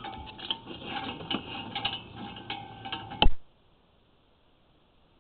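Sewer inspection camera's push cable and reel clicking and rattling irregularly as the camera is worked back and forth in the line, with a short steady tone now and then. A loud click comes about three seconds in, and then the sound cuts off.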